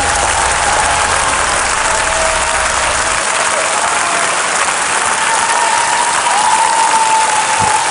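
Large audience applauding steadily, with the low end of the music under it for the first three seconds.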